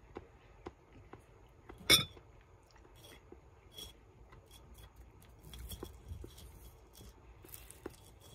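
Scattered faint clicks and small taps of objects being handled on a desk, with one sharp, ringing clink about two seconds in.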